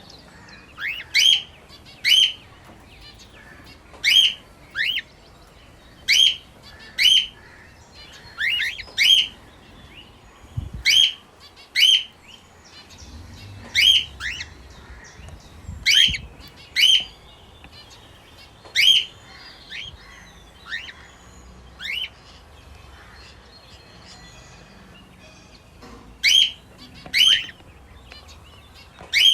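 Lutino cockatiel calling: short, loud chirps that sweep upward in pitch, mostly in pairs, repeated every second or two, with a pause of about four seconds near the end. Softer bird chirping runs faintly underneath.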